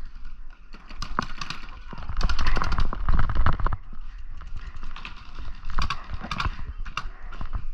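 A dense run of sharp pops and knocks in a paintball game, thickest and loudest about two to four seconds in, over a low rumble of movement on the body-worn camera's microphone.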